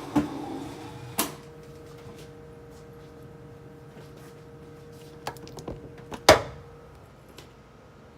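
Knocks and clatters of things being handled in a refrigerator being cleaned out: a sharp knock just after the start, another about a second in, and a cluster around five to six seconds, the loudest near six seconds in, over a steady low hum.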